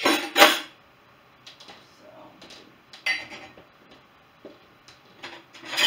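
Dishes, glasses and mugs clinking and clattering as they are loaded into a dishwasher rack. Loud clatters come right at the start and again at the end, with scattered lighter clinks between.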